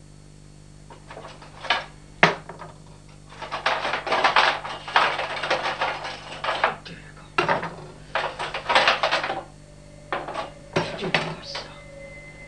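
Objects being handled with a clattering, rummaging sound like dishes or cutlery, broken by a few sharp knocks, over a steady low hum.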